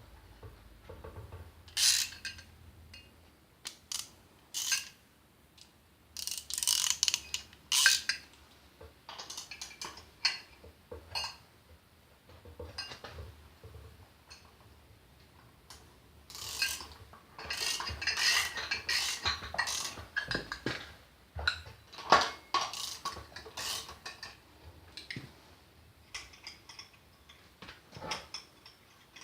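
Metal hand tools clicking and clattering on the metal parts of a Taiga 245 chainsaw's clutch assembly as it is worked loose and taken apart. The clicks come irregularly, with a busier stretch of rapid clicking past the middle.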